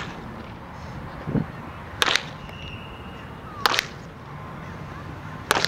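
Baseball bat hitting pitched balls in batting practice: three sharp cracks about a second and a half apart, with a dull thump a little over a second in.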